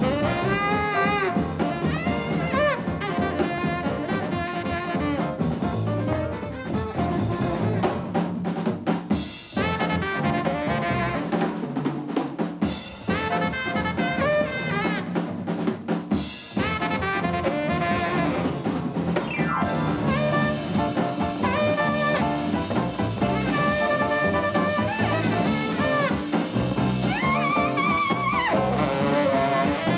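Live jazz quartet playing, with a tenor saxophone carrying a bending melody line over piano, bass and drum kit.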